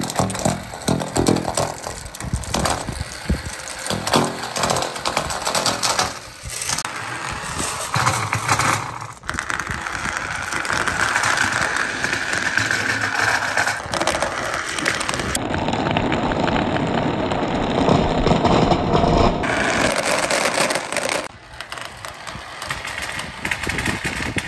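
Glass marbles rolling down a long clear plastic pipe: a continuous rumbling clatter, with many sharp clicks as they knock against each other and the pipe in the first few seconds, and softer near the end.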